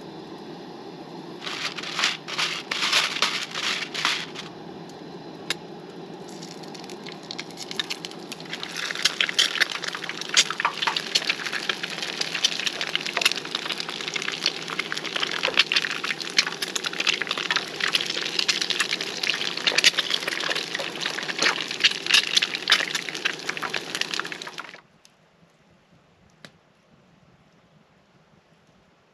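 Two eggs frying in hot oil in a pan on a camp stove, crackling and spitting: a short spell of bursts about two seconds in, then a dense, continuous sizzle from about nine seconds in, over the steady low rush of the stove's burner. The sizzle cuts off suddenly near the end.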